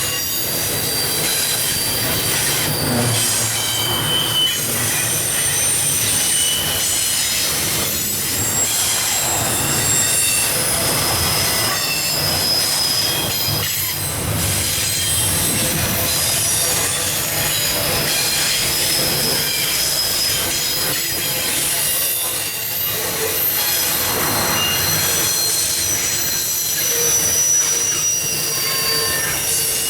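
Freight cars of an intermodal train rolling past on steel rails. Short high-pitched wheel squeals come and go over a steady rumble.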